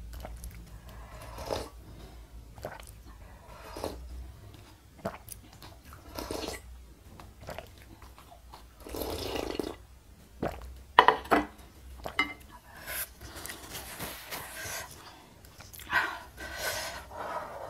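Close-up mouth sounds of a person finishing spicy noodle soup: sipping and slurping broth from the tipped bowl, swallowing and chewing, with short wet clicks and smacks. A few sharp, louder clicks come about eleven seconds in.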